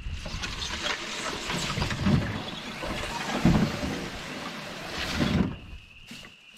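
A canoe being dragged up onto land through dry grass and brush: the hull scrapes and rustles, with heavier knocks about two, three and a half and five seconds in, and stops shortly before the end.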